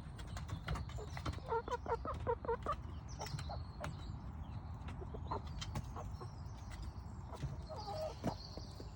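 Chickens feeding, with short soft clucks in small clusters and many sharp little taps of beaks pecking.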